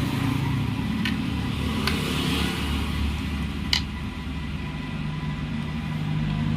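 Three short metallic clicks of a box spanner working the bolts on a wet grinder's wheel, the last the loudest, over a steady low background rumble.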